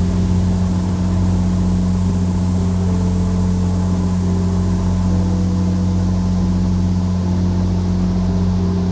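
Boat engine running at steady cruising speed, a constant low drone, with the hiss of rushing water and wind as the boat makes way.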